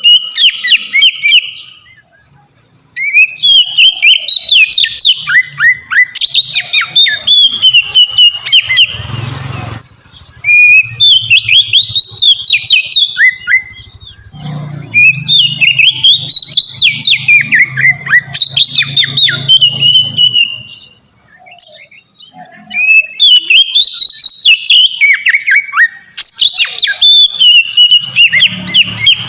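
Oriental magpie-robin (kacer) singing in full, continuous 'ngeplong' style: long phrases of rapid, sliding whistled notes and trills, broken by a few short pauses.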